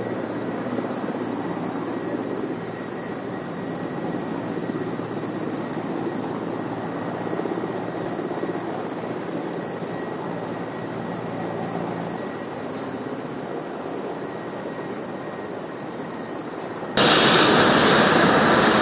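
Steady jet aircraft engine noise; near the end it cuts suddenly to much louder jet engine noise.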